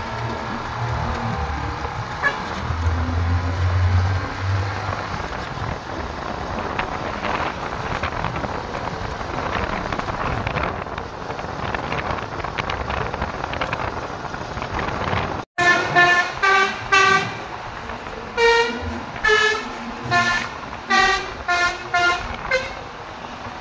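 Steady street and engine noise, then after a sudden cut a Basuri-style telolet bus horn sounds a melody of a dozen or so short musical toots at changing pitches.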